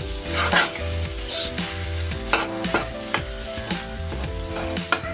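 Metal spatula stirring and scraping fried rice around a wok, with irregular taps and scrapes against the pan over a light frying sizzle.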